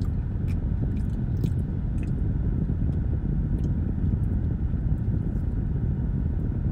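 A person chewing soft candied yams, with a few faint wet clicks from the mouth and fork, over a steady low rumble inside a car's cabin.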